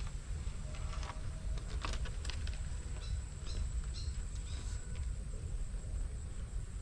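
Outdoor rural ambience: a steady low rumble under a steady high-pitched thin hum, with scattered light clicks and ticks.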